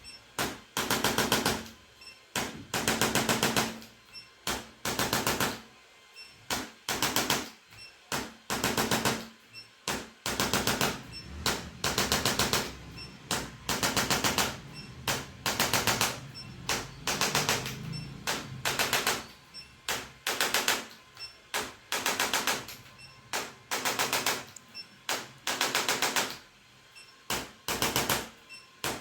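Handheld electric percussion massager rattling in short bursts, about one a second, each burst a fast train of clicks as it is pressed on and lifted off the body.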